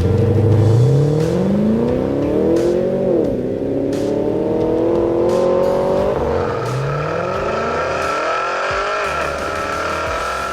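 Holden VFII Commodore's 6.2-litre LS3 V8 accelerating hard through the gears, its exhaust note climbing steadily in pitch and dropping back at each of three gear changes.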